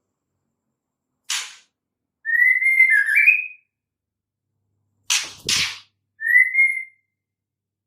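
Female white-rumped shama calling: a harsh rasping note, then a wavering whistled phrase, then two more harsh notes in quick succession and a short, slightly rising whistle.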